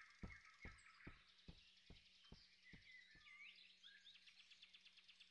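Very faint cartoon forest ambience: birds chirping softly, with a run of light, evenly spaced ticks, a little over two a second, that fade out about three seconds in.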